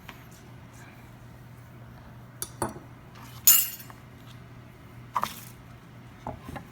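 Kitchen utensils and dishes being handled: a few short clinks and knocks, with one louder, brief bright rush about halfway through, over a steady low hum.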